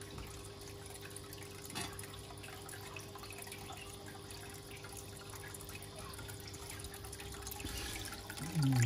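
Aquarium water trickling and dripping steadily, over a faint steady hum from the tank's equipment.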